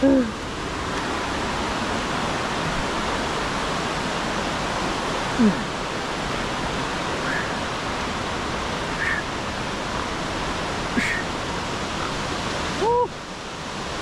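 Fast-flowing water rushing steadily, a river or falls close by. A short voice sound breaks through about five seconds in and again near the end.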